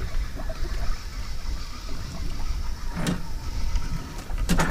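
Wind rumbling on the microphone aboard a small open boat at sea, with two short knocks, one about three seconds in and one near the end.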